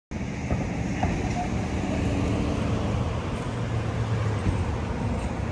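Street ambience: steady traffic noise from cars on the road.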